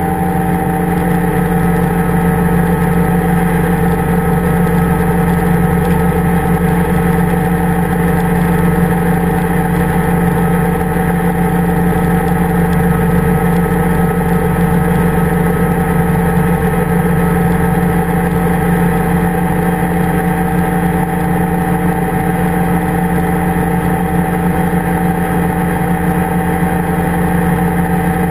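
Powered parachute's engine and propeller running steadily in flight, a loud, even drone that holds one pitch throughout, heard close up from the aircraft's frame.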